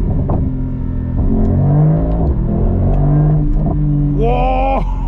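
Mercedes-AMG GT 63 S E Performance's twin-turbo V8 accelerating hard, its note climbing and dropping back several times as it changes up through the gears.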